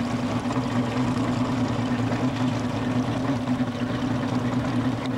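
Motorboat engine running steadily with a low, even hum, heard from aboard the boat.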